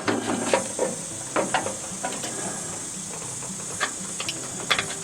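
Scattered small clicks and taps of a freshly crimped wiring connector and its lead being handled and pushed back onto its terminal, over a steady high hiss and a faint low hum.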